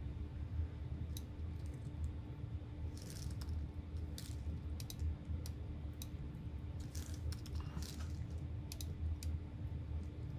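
Scattered clicks and key taps of a computer mouse and keyboard during desk work, irregular and fairly quiet, over a steady low hum.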